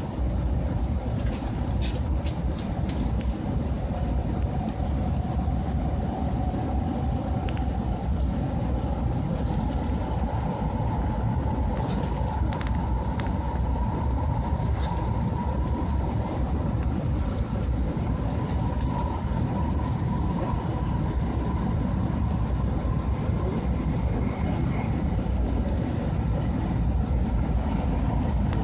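Cabin noise inside an E2-series Shinkansen running at speed: a steady low rumble, with a faint whine that climbs slowly in pitch and then holds. A few light clicks come through over it.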